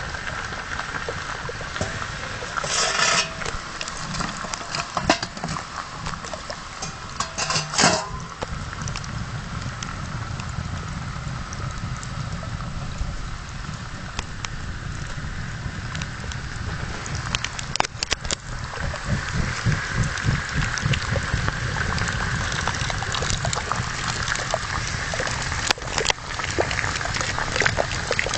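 Water bubbling and ticking in the water jacket of a woodchip-fired water heater, a steady watery noise full of small clicks, with two brief louder hisses about three and eight seconds in.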